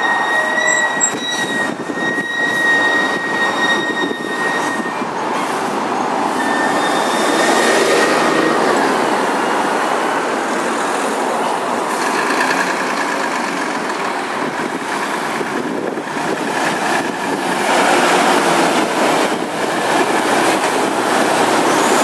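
Volvo heavy-haulage truck and low-loader trailer approaching and passing close, a loud steady rumble of engine and heavy road noise mixed with passing traffic. It grows louder near the end as the cab comes alongside.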